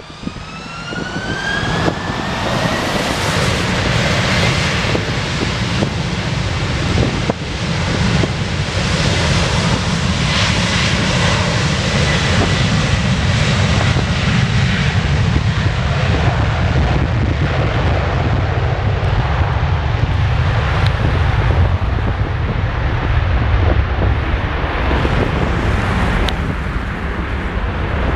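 Airbus A330-300 jet engines spooling up to takeoff thrust, with a rising whine over the first two seconds. Then comes a loud, steady jet roar with a heavy low rumble as the airliner accelerates down the runway on its takeoff roll.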